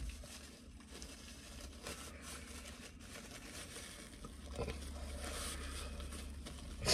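Paper napkin crumpled and rubbed between the hands as fingers are wiped clean, a faint papery rustling with small crinkles, and a short sharp louder sound right at the end.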